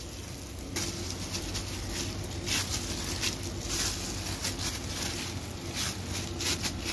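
Pizza dough being kneaded by a hand in a plastic glove on a countertop: irregular crinkling of the plastic and soft pressing strokes, a few each second, over a low steady hum.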